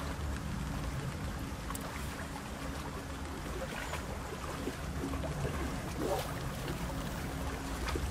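Wind rumbling on the microphone over choppy lake water lapping at the bank, with a faint steady hum underneath and a few faint clicks.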